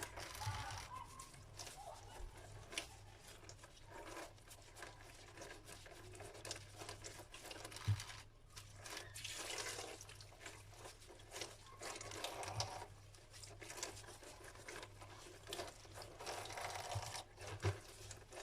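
Faint kitchen handling sounds of lemons being dried and moved about, with light rustles and a few soft knocks, the clearest about 8 seconds in.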